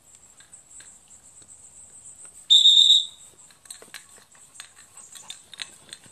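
A dog-training whistle blown once: a single steady, shrill note lasting about half a second, a little before the middle. A faint steady high buzz of insects runs underneath, and scattered light clicks follow the whistle.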